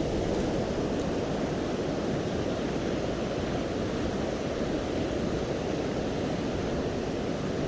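Steady rush of a river in spate: fast, high floodwater running past without let-up.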